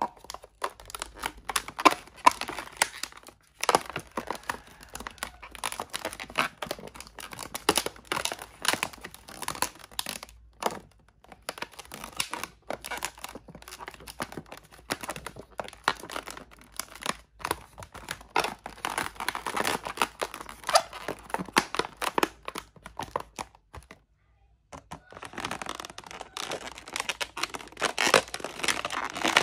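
Inflated latex modelling balloons rubbing and squeaking under the fingers as they are twisted and tucked into shape. The sound comes as many short, irregular scrapes, with a brief pause about 24 seconds in.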